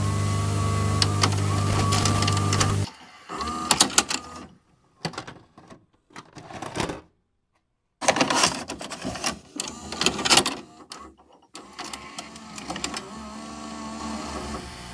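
VCR mechanism ejecting a VHS tape. A steady motor hum with a high tone runs for about three seconds, then gives way to irregular clicks and clunks of the tape transport. After about a second of dead silence halfway through, more clatter settles into a quieter motor whirr with a wavering tone.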